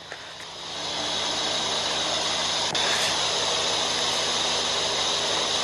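Electric table fan running, a steady rush of moving air with a faint motor hum; the air noise swells over the first second as the fan comes up to speed, then holds even.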